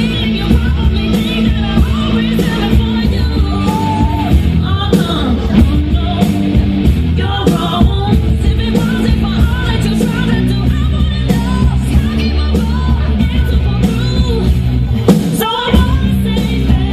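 Loud rock music with a singing voice over a heavy, steady beat, which drops out for a moment near the end.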